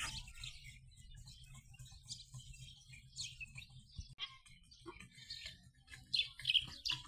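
Small birds chirping in quick, scattered calls, thickest near the end, over a steady low rumble.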